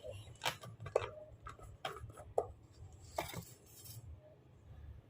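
Glassware being handled: a handful of light, scattered clicks and knocks.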